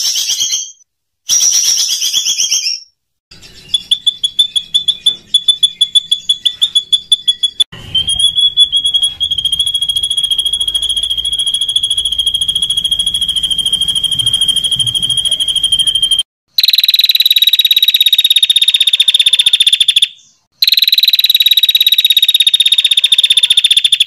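Songbird recordings spliced together with abrupt cuts: a couple of short harsh, raspy calls, then a fast rattling trill about three seconds in, then a long, steady high-pitched trill lasting about eight seconds, followed by two more long high trills that fall slightly in pitch. These are the rough, long trills ('tembakan kasar dan panjang') used as tutor song for competition birds.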